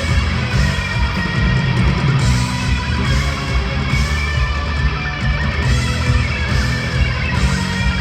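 A rock band playing an instrumental passage of a song live, with guitar to the fore over a heavy low end.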